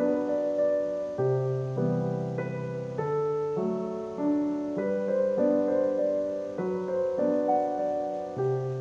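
Background piano music: single notes over a bass line, changing in steady steps.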